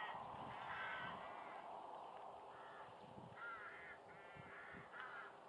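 Crows cawing, a string of short calls repeated every second or so.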